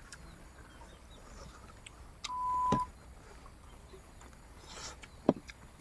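A single steady electronic beep, one pure tone lasting about half a second, a little over two seconds in. A sharp click comes as it ends, and a louder sharp click follows about five seconds in.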